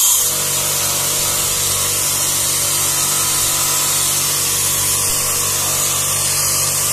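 StarQ W3 electric pressure washer running steadily, its motor humming under the hiss of the water jet as it rinses a car.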